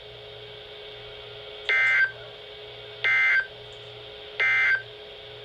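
Three short bursts of NOAA Weather Radio SAME digital data, a rapid two-tone warble about half a second each and a little over a second apart. This is the end-of-message code that closes the required weekly test. A faint steady hum lies under the bursts.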